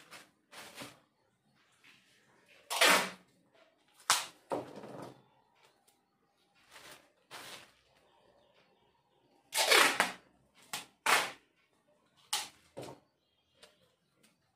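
Plastic Flipkart courier mailer bags and paper slips rustling and crinkling as they are handled and folded, in a series of short crackles, loudest about three seconds in and again about ten seconds in.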